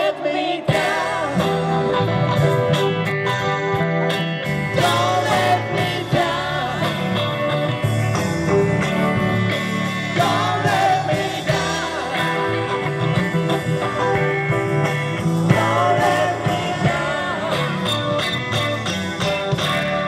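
A live rock band playing a song on electric guitars, bass guitar and drums.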